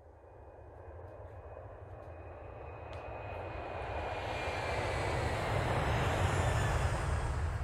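An aircraft passing overhead: a steady engine noise grows louder as it approaches and peaks near the end, with a faint whine sliding slowly down in pitch.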